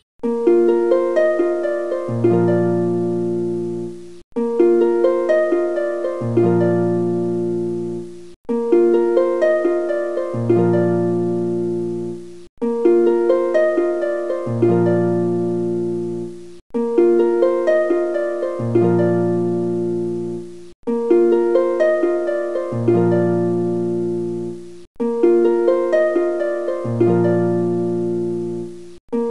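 Background music: a short plucked-string phrase looping about every four seconds. A deep bass note joins halfway through each loop, and each loop ends in a brief dropout.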